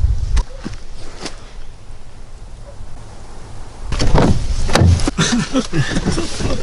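A few knocks or footsteps. About four seconds in, a car door is opened, then rustling and knocks as someone climbs into the seat.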